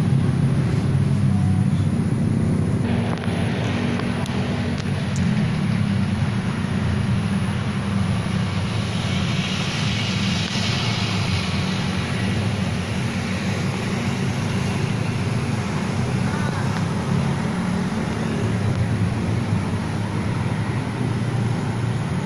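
Steady low rumble of road traffic, with a higher hiss that swells and fades about ten seconds in.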